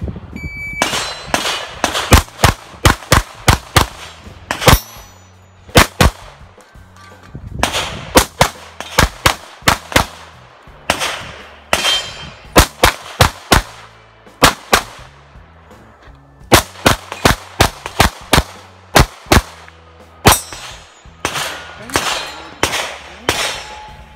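Electronic shot timer's short start beep, then a competition pistol fired in rapid pairs and strings as a USPSA stage is shot, dozens of sharp shots with brief pauses between bursts.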